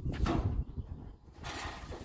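Shoes scraping and knocking on the metal body of a burnt-out van as someone climbs onto its roof, with two short scrapes, one just after the start and one near the end. Wind buffets the microphone with a low rumble throughout.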